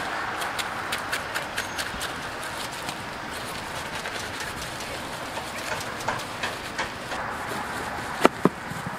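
Knife cutting pineapple: a quick run of crisp clicks, then a few scattered ones, and two loud sharp knocks near the end, over a steady background hiss.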